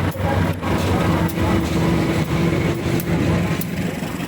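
Train running past with a heavy rumble and a steady tone, with sharp clicks scattered through it.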